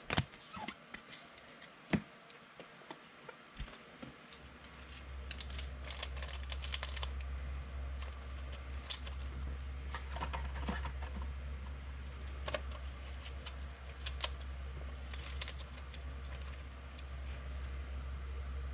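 Football trading cards and foil pack wrappers being handled on a table: scattered light clicks, taps and rustles as cards are shuffled and sorted. A steady low hum comes in about four seconds in.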